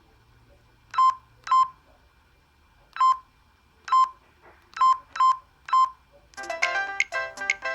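Sagem my150X mobile phone giving seven short, identical key beeps at uneven intervals as its buttons are pressed. Near the end a ringtone melody starts playing.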